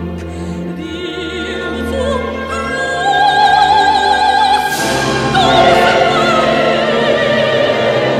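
Operatic singing with orchestra: a high voice holds long notes with wide vibrato over sustained strings. The music swells louder about three seconds in and again near five seconds.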